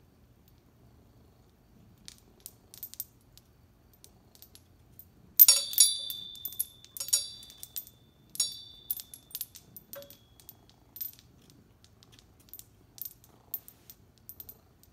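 Wind chime tinkling lightly, then struck hard about five seconds in, a high note ringing on for a couple of seconds; two more strong strikes follow, then scattered light tinkles.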